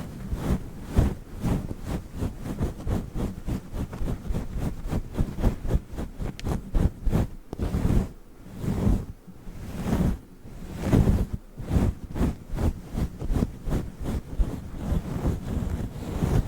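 Fingers rubbing and scratching a fluffy microphone windscreen right at the microphone, a dense run of quick, muffled scratchy strokes with a couple of short pauses in the middle.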